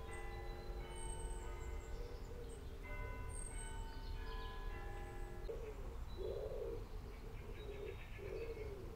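Soft background music of sustained notes for the first half, then it stops and a pigeon coos in repeated phrases, with small birds chirping high and thin.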